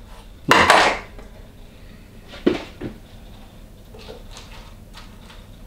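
Knife cutting through an orange on a wooden cutting board: a short loud rasp of the cut, then two light knocks on the board about two and a half seconds in, and a few faint clicks as the slice is handled.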